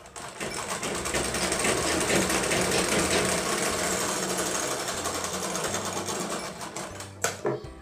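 Preet sewing machine running at a fast, even stitch as the folded bottom hem of a trouser leg is sewn. It stops shortly before the end, followed by a couple of sharp clicks.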